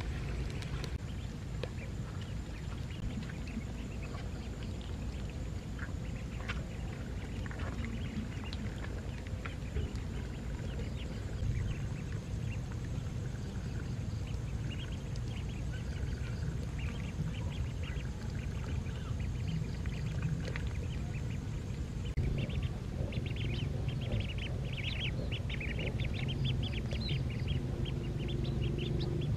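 A flock of ducklings peeping, the calls scattered at first and then coming thick and fast in the last several seconds, over a steady low rumble.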